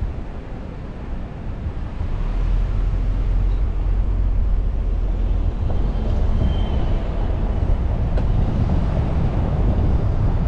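Car driving along a city street: a low engine and tyre rumble with surrounding traffic noise, which grows louder about two seconds in.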